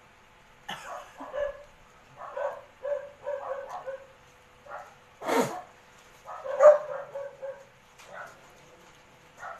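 Dog barking and whining in many short calls, the loudest about five and a half and seven seconds in.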